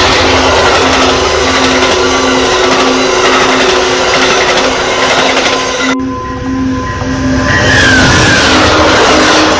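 Amtrak passenger train passing close by at speed: a loud, steady rush and rumble of the coaches' wheels on the rails. The sound breaks off sharply about six seconds in, dips, then swells again as another train passes close.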